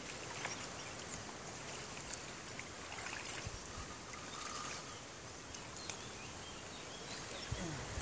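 Faint, steady outdoor background hiss with a few soft ticks scattered through it.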